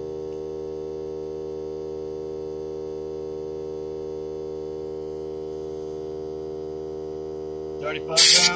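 Hart 20-volt cordless 2-gallon air compressor running steadily with an even hum while it slowly pumps up a tire. Near the end a loud, brief rush of noise cuts across it.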